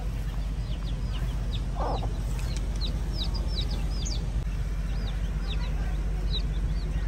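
Feral chicks peeping: many short, high chirps in quick succession, with one low cluck from the mother hen about two seconds in. A steady low rumble runs underneath.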